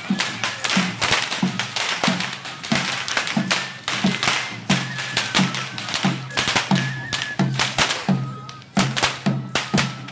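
Tlacololero dancers' chirrión whips cracking sharply again and again, over a drum beating about twice a second and a thin, high flute melody.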